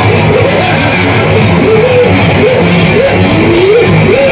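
Loud music: a melody line that repeatedly rises and falls over a dense, steady low beat.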